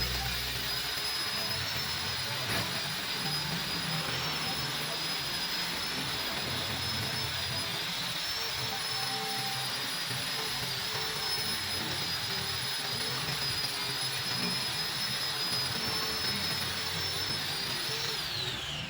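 High-speed rotary power tool running steadily with a high-pitched whine over a hiss, then spinning down with a falling whine at the end.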